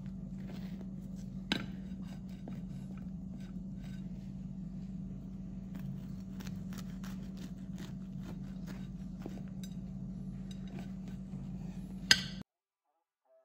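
Serrated knife sawing through the baked crust of a large stuffed bread loaf, a run of short rough scraping strokes over a steady low hum. There is a sharp click about a second and a half in and a louder sharp clack near the end, and then the sound cuts off suddenly.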